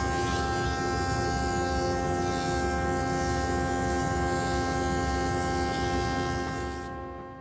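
A woodworking power tool's motor running at a steady speed with a constant hum, fading out near the end.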